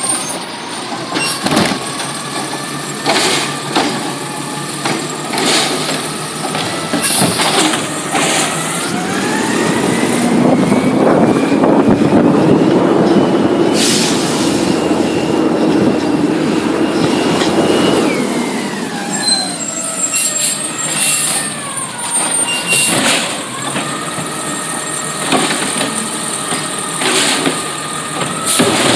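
Natural-gas side-loader garbage truck: the engine revs up about a third of the way in, runs louder for several seconds, then winds down. Clanks and knocks from the automated arm and carts come before and after.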